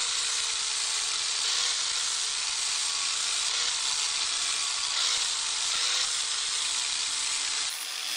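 Parkside angle grinder with an abrasive disc grinding the face of a wagon-spring steel knife blank: a loud, steady hissing grind over a faint motor whine. It stops abruptly near the end.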